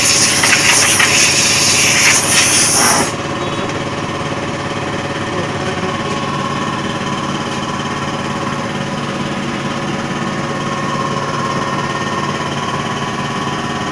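A loud spray-gun air hiss that cuts off suddenly about three seconds in, over the steady running hum of an air compressor.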